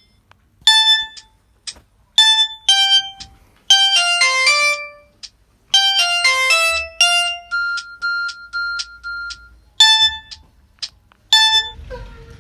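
A Samsung GT-E1150i mobile phone playing a ringtone: a synthesized melody of short, bright notes in phrases separated by short pauses, with a run of about five repeated notes at the same pitch about two-thirds of the way through.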